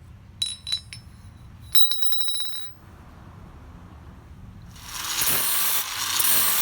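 Steel tool parts clinking and ringing, with a quick rattle about two seconds in. About five seconds in, a grinder starts grinding steel with a steady hiss, fitting a piece to the anvil's hardy hole.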